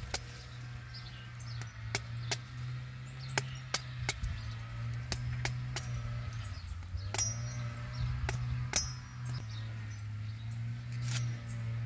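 Sharp, irregular chops of a blade striking a green coconut, roughly two a second, cutting into the husk to open it for its water. A low steady hum runs underneath.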